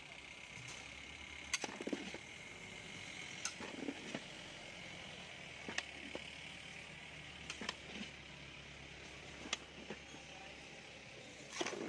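Metal ladle stirring raw fish pieces and masala in a large aluminium pot, with about ten sharp, irregular clinks of the ladle on the pot and a few wet, dull thuds from the mixing. A steady hiss runs underneath.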